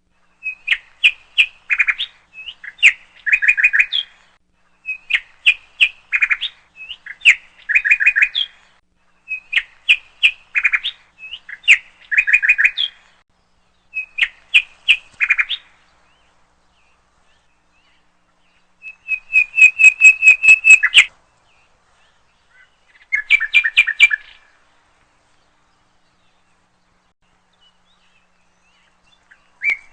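A songbird chirping in short bursts of rapid high notes, one burst every two seconds or so through the first half, then a longer trill a few seconds later and one more short burst after it.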